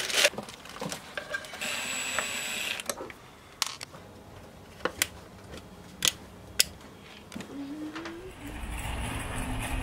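Scattered small clicks and ratcheting from a screwdriver and small mounting hardware being handled while fitting a VHF radio. A brief rustle comes about two seconds in, and a low hum comes in near the end.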